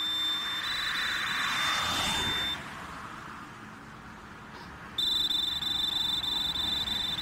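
A steady high-pitched tone that cuts off after about two and a half seconds and comes back near five seconds, over a rushing noise that swells and fades around the two-second mark.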